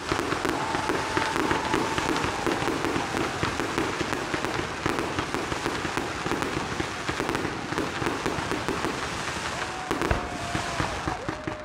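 Fireworks display: a rapid, continuous crackle of bursting shells and crackling stars. A thin steady whistle sounds in the first couple of seconds and again near the end.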